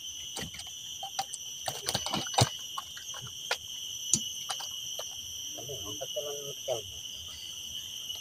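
Steady high-pitched insect drone, like crickets or cicadas, with scattered sharp clicks and knocks in the first few seconds, the loudest about two and a half seconds in.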